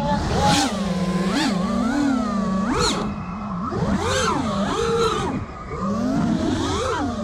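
The brushless motors of a 5-inch FPV freestyle quadcopter (1960KV on 6S, Gemfan Sbang props) whine continuously, the pitch swooping up and down again and again with the throttle. A few short rushes of air come through the props.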